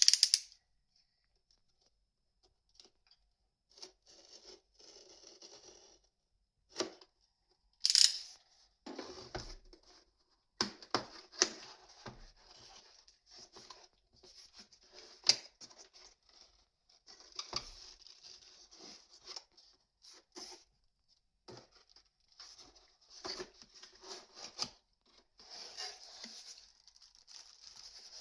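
Packaging of a keyboard being opened and handled: cardboard and plastic rustling, scraping and tearing in scattered bursts between quiet gaps, with a couple of sharper, louder knocks, one at the very start and one about eight seconds in.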